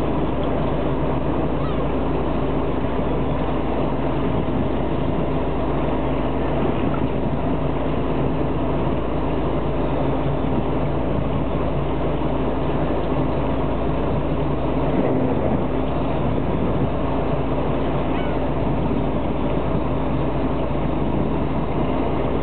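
Fishing boat's engine running steadily, a continuous even hum with a few held tones, on board while the boat sits fishing.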